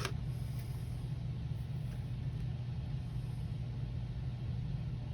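Steady low background hum with a single light click at the start.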